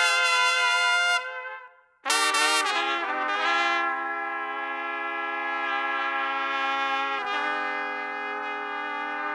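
A plastic trumpet playing: a held note dies away, then after a brief pause a quick run of notes leads into one long sustained lower note. The player hears it as loud but lacking clarity, with the air seeming not to flow freely through it.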